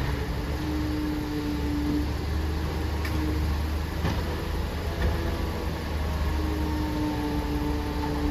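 Grapple-crane recycling truck's diesel engine running steadily, with a hydraulic whine that fades out after about two seconds and comes back near the end as the crane boom moves. A few faint knocks in between.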